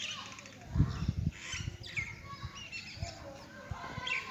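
Small birds chirping and calling over one another, with a burst of low rumbling thumps about a second in.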